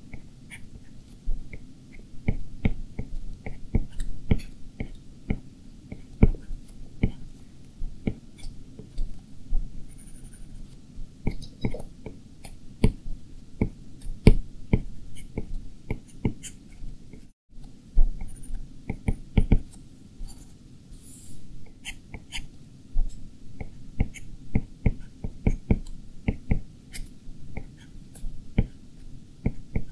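Stylus tip tapping and stroking on the glass screen of a 12.9-inch iPad Pro while drawing: irregular light clicks, several a second, over a steady low hum.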